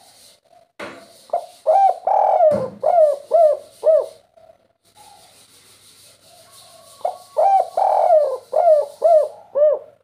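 Spotted dove (derkuku) cooing: two song phrases, each of a couple of short notes, one longer drawn-out coo, then three short arched notes to close, the 'kuk 3' song type prized by Indonesian dove keepers.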